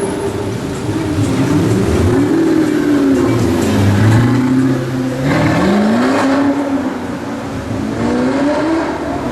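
Supercar engine revving, its pitch climbing and dropping back several times, with a louder, brighter rev about halfway through.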